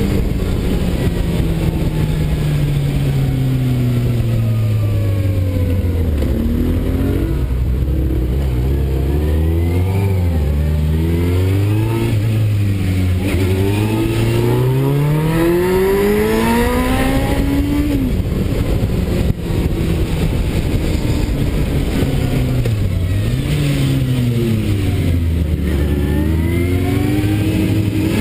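Motorcycle engine heard from the bike itself, its note repeatedly falling as it slows and rising as it accelerates out of bends, over a steady rush of wind.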